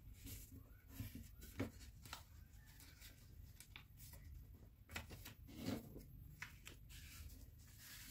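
Faint rustling and crinkling of a sheet of origami paper being folded and creased by hand, with a few short taps and scrapes as the fingers press the folds flat.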